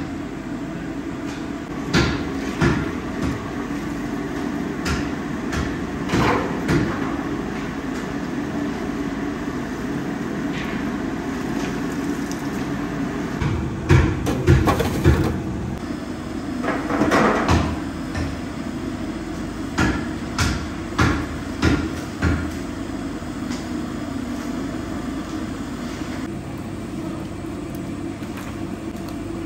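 Kitchen work sounds: scattered knocks and clatter of metal trays and utensils over a steady hum, with a cluster of louder knocks about halfway through.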